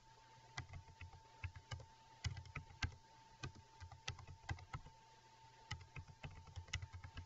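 Typing on a computer keyboard: irregular key clicks, several a second with short pauses, over a faint steady whine.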